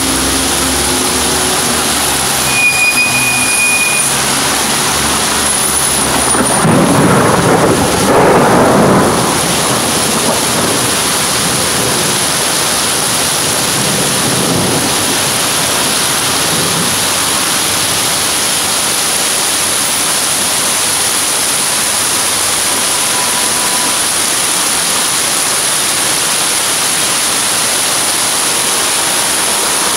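Torrential rain hissing steadily on a flooded street, with trucks and cars splashing through the water. A truck engine fades out in the first few seconds, and a louder rumbling swell comes about seven to nine seconds in.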